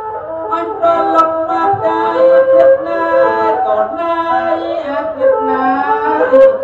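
Traditional Khmer wedding music: a man singing into a microphone, accompanied by a bowed two-string tro fiddle whose melody slides between notes. The voice comes in strongly about half a second in.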